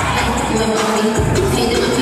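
Loud music with deep, held bass notes, a new bass note coming in about a second in, with crowd noise beneath.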